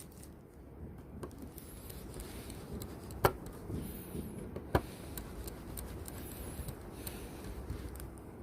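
Small sharp clicks and taps of a precision screwdriver and tiny screws against a smartphone's frame as the screws are put back in, two louder clicks about three and nearly five seconds in.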